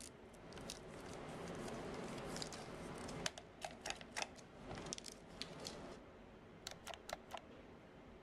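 35mm film tape splicer being worked by hand: a run of small, irregular clicks and snaps over a faint steady hum.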